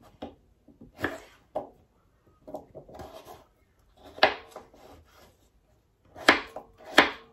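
Kitchen knife cutting raw peeled potatoes on a wooden chopping board: irregular sharp knocks of the blade hitting the board, about six in all, with a brief scraping of the blade and pieces across the board before the middle.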